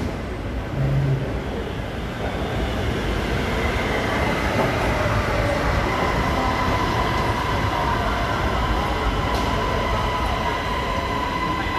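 Electric metro train pulling in beside the platform, a rumble of wheels on track that grows louder over the first few seconds. From about five seconds in, a steady high whine sits over the rumble.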